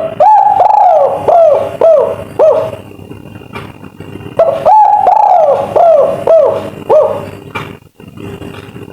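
Spotted dove (tekukur) of the 'kuk 3' song type cooing loudly in two phrases. Each phrase is a long first coo followed by a few shorter, falling coos.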